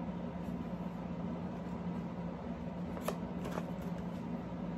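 Cardboard toy box being handled and turned over in the hands, with two light taps a little after three seconds in, over a steady low room hum.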